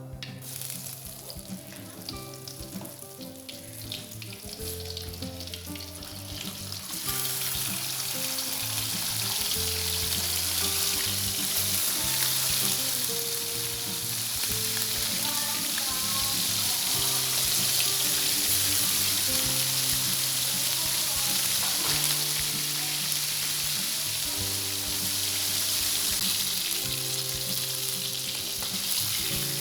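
Fish frying in hot oil in a pan, a steady sizzle that gets louder about seven seconds in, with background music playing a melody throughout.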